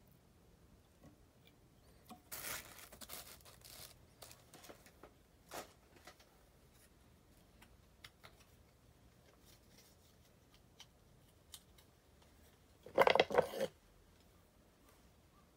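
Small fly-tying scissors and tools being handled at the vise: a few soft rustles and clicks in the first seconds, then a short, louder scissor-like rasp about thirteen seconds in.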